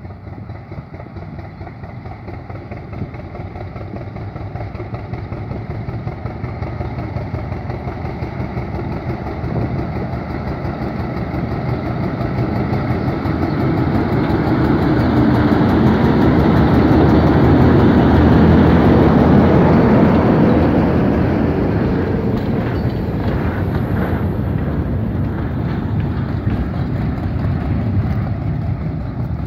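GE U12 diesel-electric locomotive hauling a work train past: its diesel engine grows louder as it approaches, is loudest as it passes, then fades as the train's cars roll by. A run of clicks and knocks from the passing cars comes about two-thirds of the way through.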